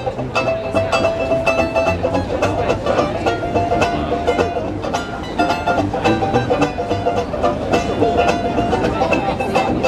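Traditional jazz band playing live: a banjo strumming the beat and a sousaphone playing the bass line, under a wind instrument holding long melody notes.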